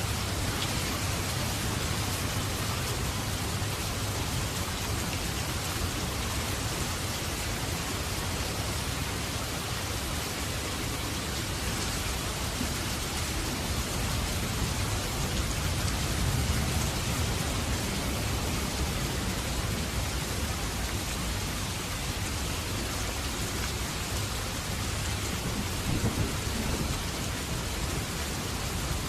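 Steady rain falling, with low rumbles of thunder swelling now and then, most noticeably about halfway through and again near the end.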